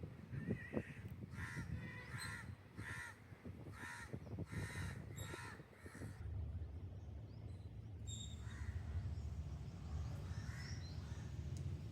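A bird cawing, a quick run of seven or eight harsh caws about half a second apart, then a few fainter calls, over a low steady rumble that grows louder about halfway through.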